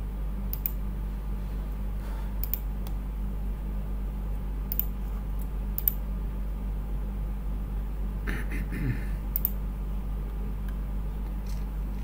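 Scattered sharp clicks of a computer mouse and keyboard over a steady low hum, with a brief louder noise about eight seconds in.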